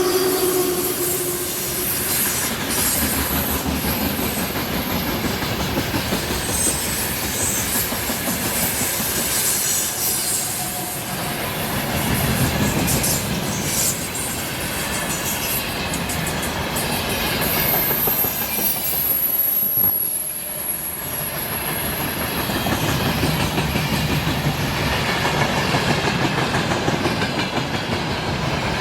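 A train rolling past at close range, its wheels clattering over the rail joints and a thin high wheel squeal rising about two-thirds of the way through. A horn note dies away in the first second.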